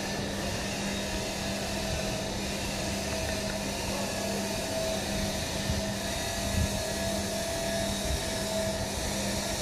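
Steady mechanical hum with an even hiss, a machine running continuously, with a few faint soft knocks about six to seven seconds in.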